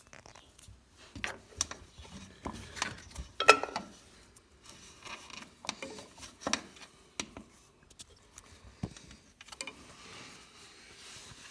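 Hydraulic quick couplers and their dust boots being handled and fitted on a tractor's loader lines: scattered short metal clicks, clacks and rubs, the loudest knock about three and a half seconds in.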